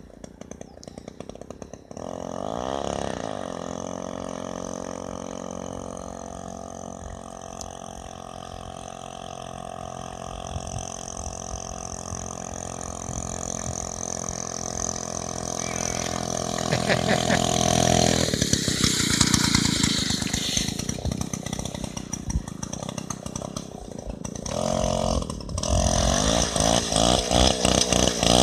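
Druzhba chainsaw's two-stroke engine powering a home-built motor sled. It picks up about two seconds in with a rising pitch, runs steadily for a long stretch, then its sound shifts and grows rougher with throttle changes, dips briefly and rises louder near the end.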